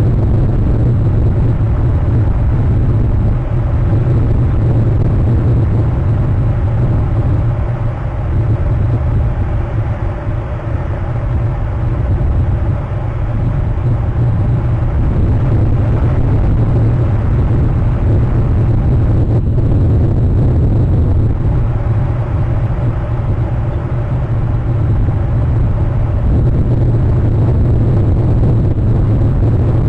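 Steady, loud low rumble of wind buffeting an outdoor webcam microphone, with no bird calls heard.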